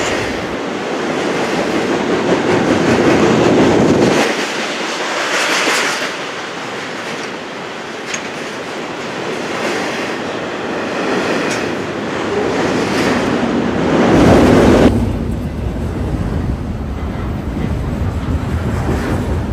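Double-stack intermodal freight cars of a CN train rolling past: a steady rumble and clatter of steel wheels on the rails. The sound's character changes abruptly about four seconds in and again near fifteen seconds in.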